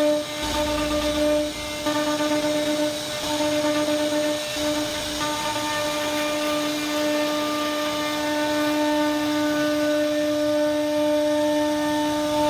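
CNC router spindle whining at a steady pitch as its bit carves into a wooden panel, with a rough cutting noise under the tone.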